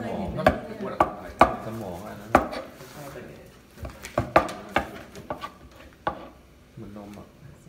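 Kitchen knife chopping through puffer fish on a plastic cutting board: a series of sharp, irregular knocks as the blade strikes the board, coming thickest in the first half and thinning out after about six seconds.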